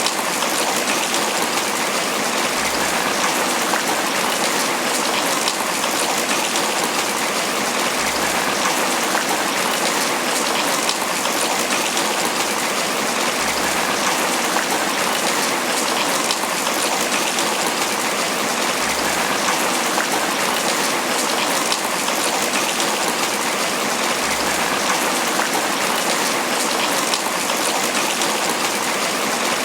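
Tropical rain falling steadily on banana leaves, a dense, even patter of drops that does not let up.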